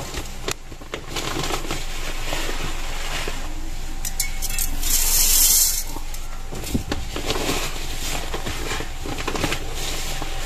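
Dry basmati rice poured into a metal pot: a brief hiss of falling grains about five seconds in, with scattered clicks and rustling of grains and handling between pours as the rice is measured out cup by cup.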